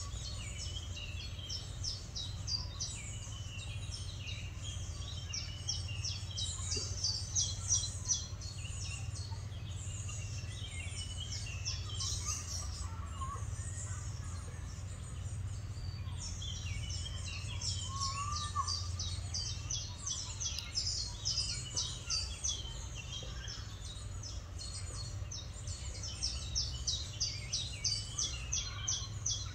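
Small songbirds singing fast, high-pitched phrases of rapidly repeated notes in bursts, with a lull around the middle, over a steady low background rumble.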